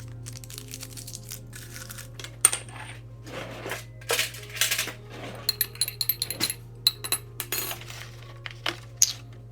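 Small hard objects clicking and clinking against each other in an irregular run of sharp knocks, several ringing briefly, with the loudest knock about two and a half seconds in, over a low steady hum.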